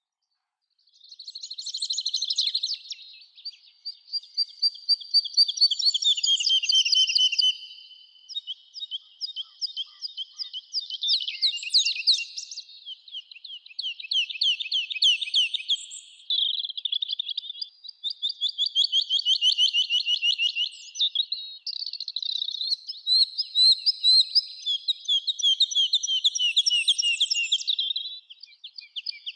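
A songbird singing: long phrases of rapid trills and chirps with short pauses between them, starting about a second in.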